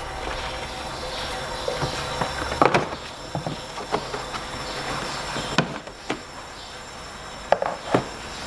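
Sharp plastic clicks and knocks as the engine-bay trim covers are unclipped and lifted to reach the battery, about seven in all. A steady hiss runs underneath.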